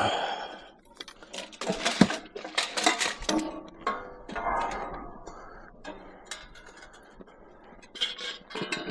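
Pieces of scrap metal clanking and clattering against each other as they are handled and stacked onto a load, a string of knocks, some leaving a short metallic ring.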